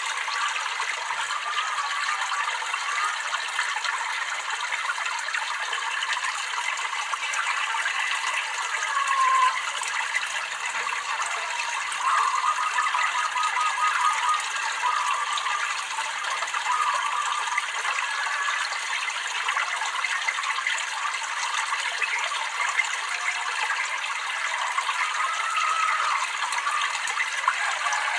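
Water trickling and babbling steadily, with small bubbling gurgles every now and then over an even rushing hiss.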